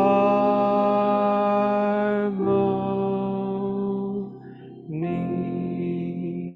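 Unaccompanied hymn singing, drawing out the long final notes of the verse: two held notes, a short dip about four seconds in, then another held note.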